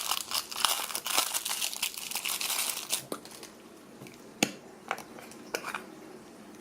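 Plastic wrapping crinkling and tearing as it is pulled off a small slime tub, for about three seconds, followed by a few separate clicks and taps.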